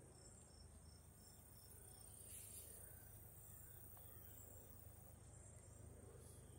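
Faint insects chirping in the grass: a steady high trill with even pulses about twice a second, over a faint low rumble.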